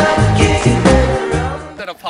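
Background music with a steady beat, about two beats a second, fading out near the end.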